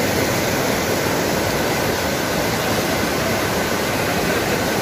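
Fast mountain river rushing and splashing over boulders in shallow rapids, a loud, steady rush of water.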